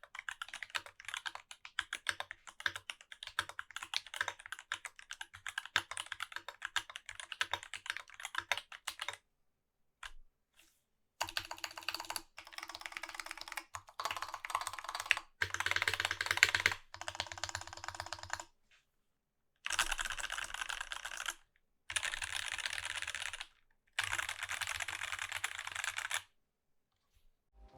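Mechanical keyboard typing on lubed and filmed Durock T1 tactile switches in a brass-plate Rama U80-A with GMK keycaps. Steady typing for about nine seconds, then after a short pause a series of fast bursts of keystrokes, each a second or two long, with brief gaps between them.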